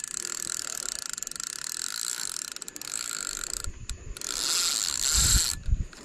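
Spinning fishing reel ticking rapidly as the line is worked during a gar's run. The ticking breaks off about two-thirds of the way through, then a louder rush of noise and a few handling thumps follow near the end.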